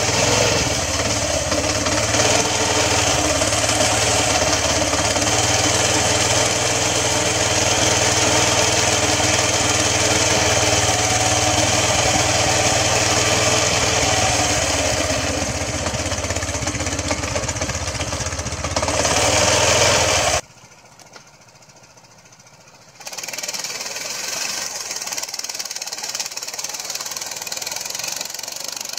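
The small engine of a Sibir 2×2 all-wheel-drive motorcycle running close by with a steady rapid chugging. About 20 seconds in it cuts off abruptly, and a few seconds later the same engine is heard more faintly as the motorcycle rides through snow.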